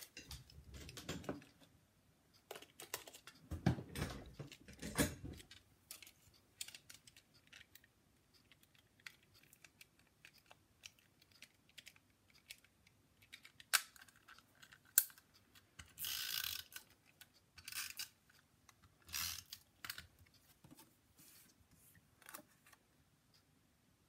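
Tape-runner adhesive dispenser, out of tape, being opened and handled: scattered small plastic clicks and taps. A few short scraping rustles of paper and card come about two-thirds of the way through.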